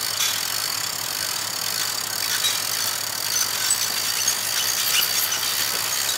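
Diesel engines of truck-mounted crane lorries idling steadily, with a steady high-pitched hiss and scattered light clicks over the low engine hum.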